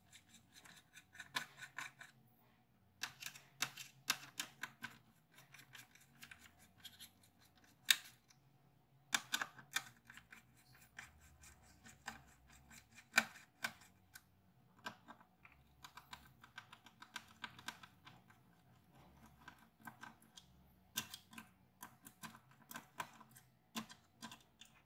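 Faint, irregular clicks, ticks and scrapes of small hand tools and plastic parts as an Acer 4738Z laptop is taken apart.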